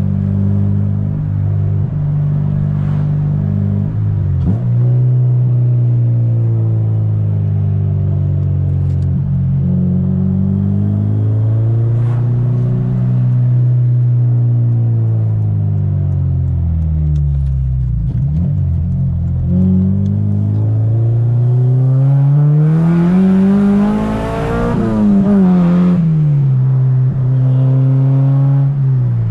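K24-swapped Honda Civic Si's four-cylinder engine heard from inside the cabin while driving. The note rises and falls with throttle and gear changes, dropping to low revs about two-thirds through, then climbing in one long pull before falling sharply at a shift.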